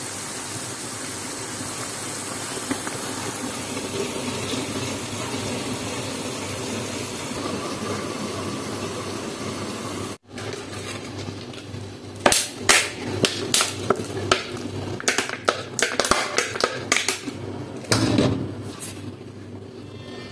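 Potato fries deep-frying in a pan of oil, a steady sizzle. After a break about halfway through, it gives way to a run of sharp clicks and knocks, which are the loudest sounds.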